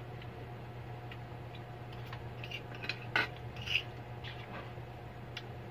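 Metal cutlery clinking and scraping on ceramic plates as people eat, with a few sharper clinks about three seconds in, over a steady low hum.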